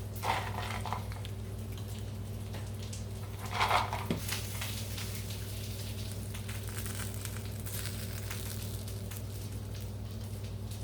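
A steady low kitchen hum, with two brief clatters of tableware: one just after the start and a louder one about three and a half seconds in.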